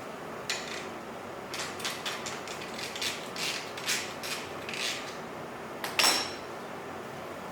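Metal tools and exhaust hardware clinking and rattling as they are handled during an exhaust fitting, a string of short sharp clicks. About six seconds in comes one louder metallic clank that rings briefly.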